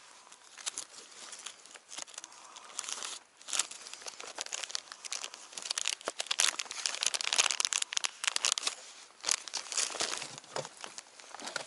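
Plastic packets of fishing lures crinkling and rustling as they are handled and rifled through in a zippered pouch, in irregular bursts with sharp crackles, loudest around the middle.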